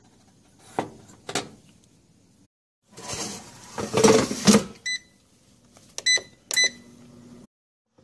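Knocks and a loud clatter as the air fryer's basket is handled, then a few short electronic beeps from the air fryer's push-button control panel.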